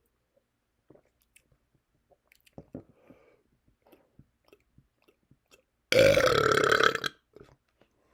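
One loud burp lasting about a second, coming about six seconds in, brought on by drinking seltzer. It is preceded by faint, scattered mouth clicks.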